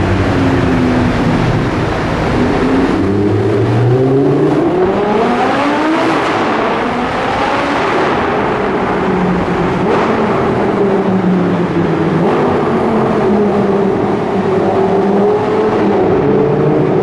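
Audi R8 V10 with a Quicksilver exhaust accelerating hard in a tunnel, heard from inside the cabin: the engine note climbs in pitch over several seconds from about two seconds in, then runs on at a high, fairly steady pitch.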